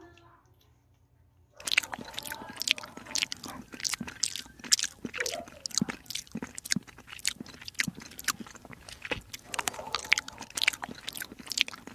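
Kitten chewing wet fish cat food from a plate: a quick, irregular run of close-up wet chewing clicks that starts suddenly about a second and a half in.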